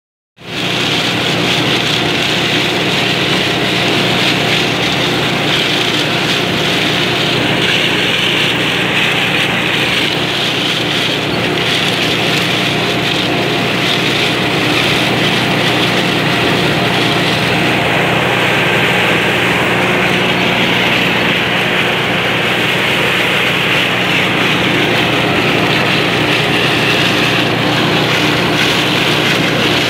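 Claas Dominator 108 combine harvester running steadily while harvesting maize with its 6-row corn header: a continuous drone of engine and threshing machinery, heard from inside the cab. It starts about half a second in.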